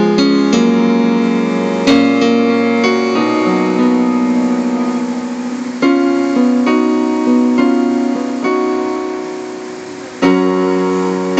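An electronic keyboard set to a piano sound plays a slow two-handed passage of held chords with a melody over them. Fresh chords are struck about two, six and ten seconds in, and each one fades as it is held.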